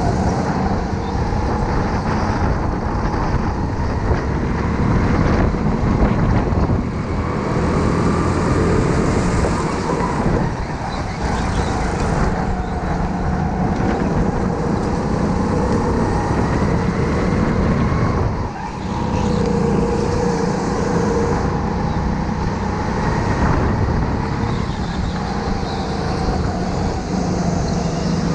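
Onboard sound of a rental go-kart being driven hard around a track: its motor's pitch rises and falls as it speeds up and slows for corners, over a steady rumble of tyres and wind. It drops off briefly about two-thirds of the way through.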